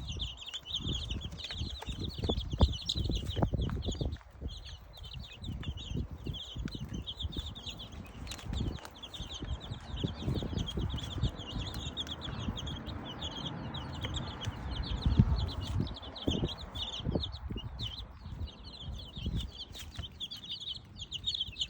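A flock of young chicks peeping continuously while they eat raw ground pork, with many sharp knocks and taps from pecking underneath.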